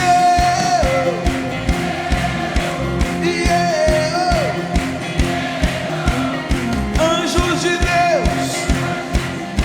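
Live worship band playing with a steady drum beat while a voice sings long held notes, each sliding down at its end.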